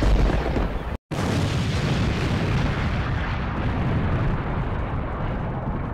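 Explosion sound effect: a sudden blast, a brief cut about a second in, then a second blast whose rumble slowly fades over about five seconds.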